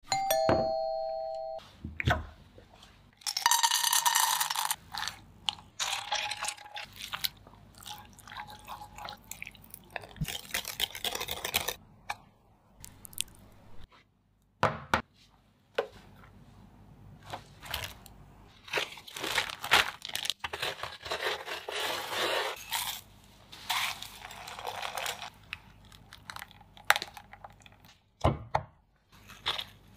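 Close-up kitchen preparation sounds: irregular crunching and crackling stretches with clicks and knocks of utensils and containers, after a short ringing chime at the start.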